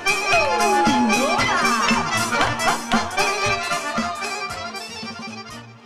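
Folk band playing an instrumental passage led by accordion over a steady beat, fading out near the end.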